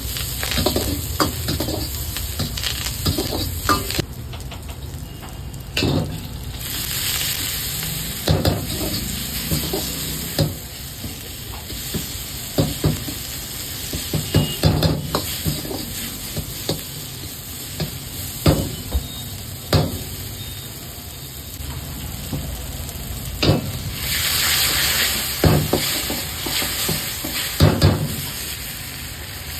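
Onions, chillies and a red masala sauce sizzling in oil in a black iron wok while a long-handled metal ladle stirs and scrapes, knocking against the wok again and again. The hiss swells louder twice, about seven and twenty-four seconds in.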